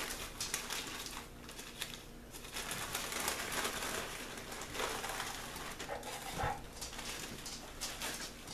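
Wrapping paper and a plastic bag crinkling and rustling as a gift is unwrapped by hand, with many sharp little clicks. A dog whines briefly about six seconds in.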